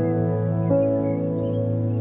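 Slow, calm new-age ambient music: sustained, held keyboard notes with a new note entering about a third of the way in.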